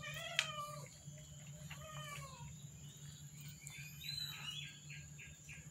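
Birds calling: two drawn-out calls that fall in pitch at the end, in the first half, then a quick run of short repeated chirps, about three a second, from about four seconds in. A low steady hum runs underneath.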